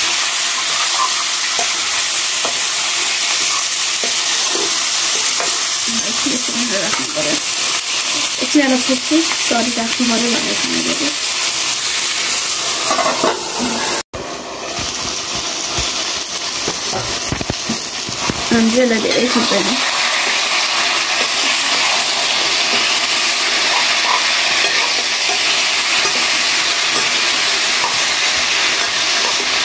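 Chicken pieces sizzling steadily in hot oil in a metal wok over a wood fire, stirred at times with a metal ladle. The sound breaks off for an instant about halfway through.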